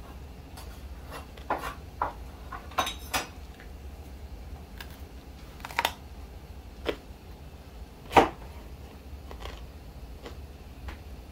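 Kitchen knife tapping and knocking on a wooden cutting board while root vegetables are peeled and cut: irregular single knocks a second or so apart, the loudest about eight seconds in. A low steady hum runs underneath.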